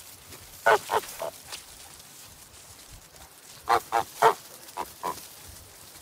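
Geese honking: a quick run of three short, nasal honks about a second in, then five more from about three and a half seconds in.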